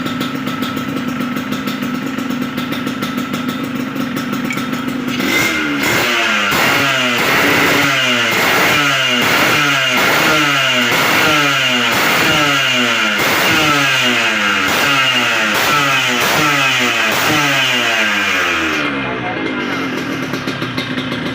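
Yamaha RX-King's single-cylinder two-stroke engine idling, then revved repeatedly from about five seconds in, roughly once a second, each rev falling back, before settling to idle again near the end. These are the blips made while setting up the carburettor.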